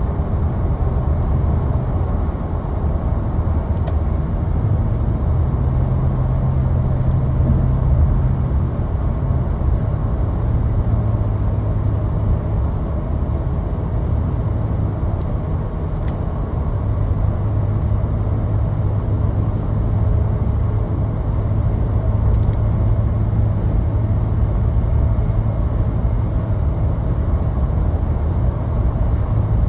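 Steady road noise of a car driving at highway speed, a low drone with an engine hum that shifts in pitch now and then.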